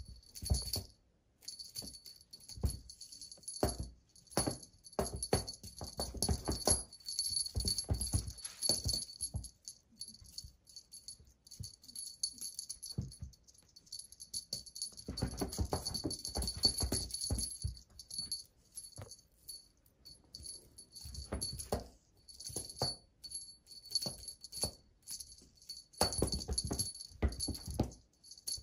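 A beaded wand cat toy jingling and rattling in irregular bursts as it is shaken and batted about, with soft knocks and thumps; it pauses for a few seconds around the ten-second mark and again around twenty.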